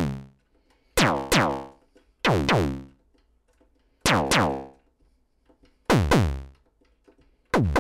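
Moog DFAM analog percussion synthesizer playing a slow sequence on its second oscillator: separate pitched electronic hits, about one every one to two seconds, each falling in pitch as it decays. The note's pitch changes from step to step because the sequencer is modulating VCO 2's pitch.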